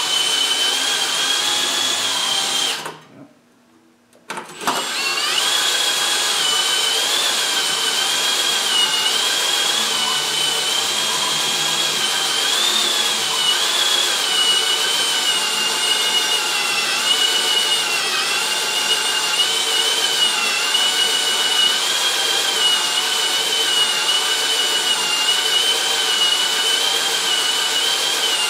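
Hand drill spinning a Lisle 15000 cylinder hone in the bore of a 12 hp Briggs & Stratton engine, a steady whine with a slightly wavering pitch. It stops for about a second and a half around three seconds in, then starts again and runs on. The bore is being honed out ten thousandths oversize to clean up rust.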